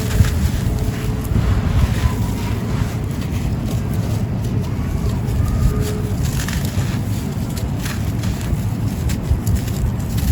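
Dry, grainy sand-cement chunks being crushed and crumbled: a steady gritty crunching, thick with small cracks and crackles.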